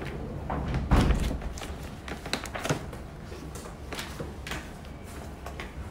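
Quiet classroom room tone with scattered light taps and knocks, and a louder thump about a second in.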